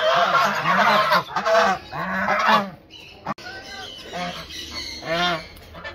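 Domestic geese honking, many calls overlapping at once. After a click about three seconds in, only a few separate honks are left.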